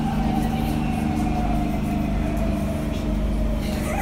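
Siemens C651 metro train running between stations, heard from inside the carriage: a steady low rumble with a traction-motor whine that slowly falls in pitch.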